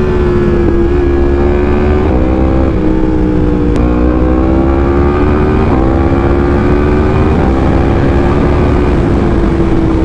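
2019 Yamaha MT-10's crossplane inline-four engine running under load at highway speed, about 120 to 135 km/h, its note holding fairly steady with small rises and dips. A steady low wind rumble lies underneath.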